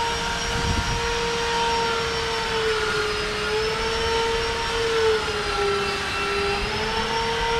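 A steady machine whine with a clear pitch and overtones, its pitch slowly wavering up and down.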